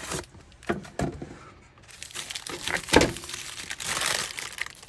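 Wax paper crinkling and a cardboard box being handled as a wax-paper-wrapped fruitcake is tipped out of it, with a few knocks, the loudest about three seconds in.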